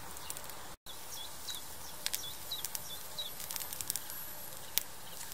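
Chicken roasting on a charcoal grill, crackling with scattered sharp pops from fat and coals. Short, repeated chirps of small birds in the background.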